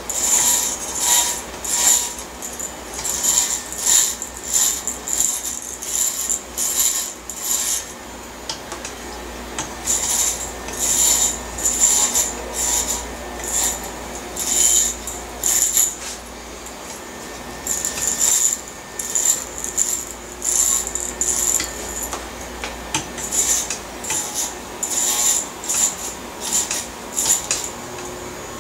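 Corded electric hair clippers with a guard cutting short hair in quick strokes up the back and side of the head, about two or three strokes a second, in runs of several seconds broken by short pauses.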